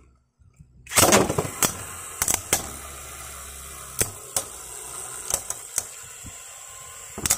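Two Beyblade Burst spinning tops, Z Achilles and Orb Egis, battling in a plastic stadium. A loud rush comes about a second in, then a steady whir of the spinning tops on the plastic floor, broken by repeated sharp clacks as they collide.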